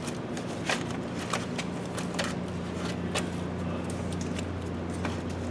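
Scattered light clicks and rattles of the interior door handle being pushed forward and worked loose from the door panel, over a steady low hum.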